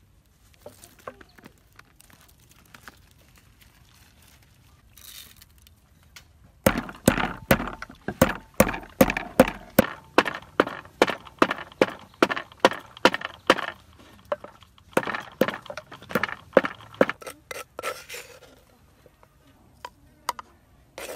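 Wooden pestle pounding in a wooden mortar, about three strokes a second, crushing dry seasoning. The pounding starts about a third of the way in, pauses briefly, then stops shortly before the end; before it there are only faint small knocks.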